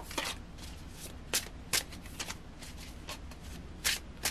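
A tarot deck being shuffled by hand: a faint steady rustle with about five short, crisp card slaps at irregular intervals.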